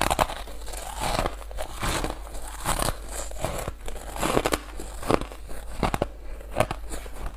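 Porous purple ice being bitten and chewed close to a lapel microphone: a run of irregular, crisp crunches and crackles as it breaks between the teeth.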